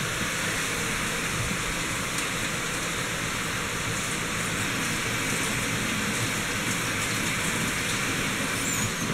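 Ground beef sizzling steadily in a large pan on the stove, frying over sautéed onions and green peppers.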